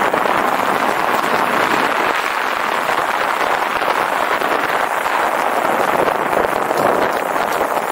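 Steady rushing noise of wind on the microphone and tyres rolling over a rough mountain track as a bicycle descends.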